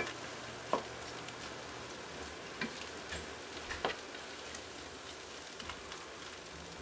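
Soy-sauce marinade boiling hard in a stainless steel pan, a steady bubbling hiss, with a few light knocks of a wooden spoon against the pan as the vegan beef slices are stirred.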